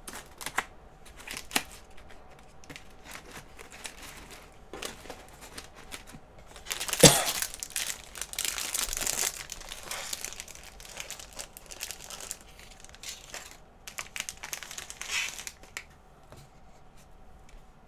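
Plastic snack wrapper crinkling and tearing as a mini cheesecake is unwrapped by hand. The rustling is loudest in a burst starting with a sharp rip about seven seconds in and lasting a few seconds, with lighter crinkles before and after.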